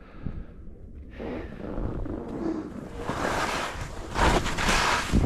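Skis scraping and carving through uneven snow, with wind buffeting the microphone. Quiet for the first second, then a hissing scrape that grows louder through the turns and is loudest a few seconds in.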